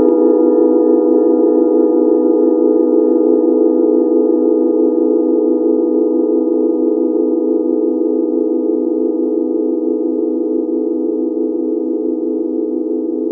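Forged singing bowls from a seven-note set ringing on after being struck, several steady tones sounding together. They fade slowly with a gentle wavering beat.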